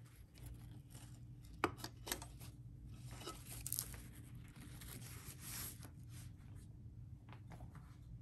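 Faint rustling of stiff fabric being handled, with a couple of sharp clicks a little under two seconds in and a longer rustle from about three to six seconds in.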